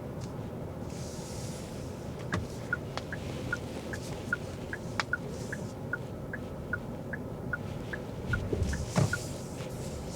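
Turn-signal indicator ticking in an even tick-tock, about two and a half ticks a second, over the steady cabin road noise of a 2024 Kia Carnival Hybrid minivan. A few sharp knocks and a louder low thump come near the end.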